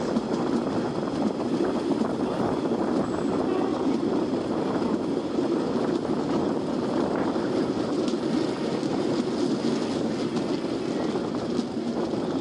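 Indian Railways passenger coach running along the track, heard from an open window: a steady rumble of wheels on rail mixed with rushing air.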